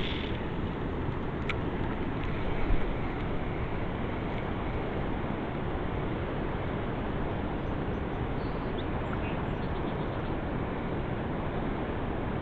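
Steady rushing noise of wind on the microphone and moving river water, with a faint click about a second and a half in.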